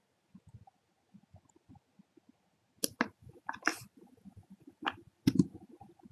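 Computer mouse clicking: a quick pair about three seconds in, a short clatter of clicks just after, then single clicks and a loud double click near the end.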